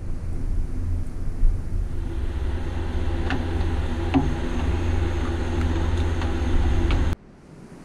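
A steady low rumble that cuts off suddenly near the end, with a few faint taps as gloved hands turn a taped plastic toy van body.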